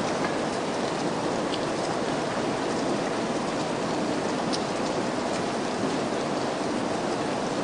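Steady rain falling, a constant hiss with scattered individual drops ticking through it.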